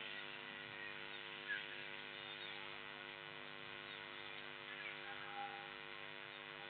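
Steady low hum, with a couple of faint short chirps.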